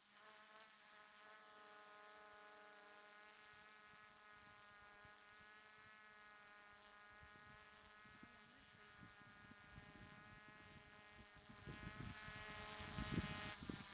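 Faint steady buzzing of a DJI F450 quadcopter's motors and propellers as it hovers at a distance. Low thumps come in during the second half and are loudest near the end.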